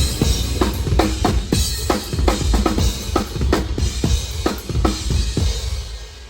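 Live drum kit played in a metal drummer's soundcheck: steady kick drum, snare hits and cymbal wash in a quick rhythm, fading away near the end.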